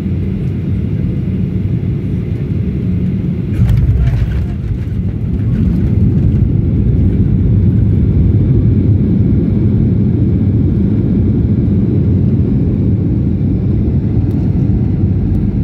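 Low, steady rumble heard inside the cabin of a Boeing 737 airliner rolling along the runway after landing: engine noise and wheels on the concrete. A brief rattle comes about four seconds in, and the rumble grows louder a couple of seconds later.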